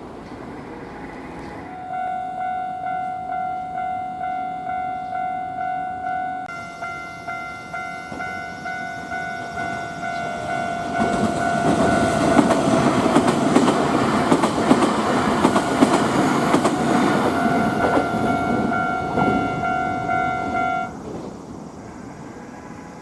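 A Japanese level-crossing alarm starts ringing, a pulsing bell about twice a second, and about eleven seconds in a Nankai Series 8000 electric train passes, a rushing roar with wheels clattering over the rail joints. The bell stops a second or so after the train has gone by.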